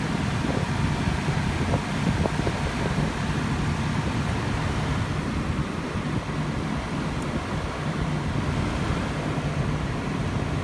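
1998 Mazda MPV minivan engine idling steadily.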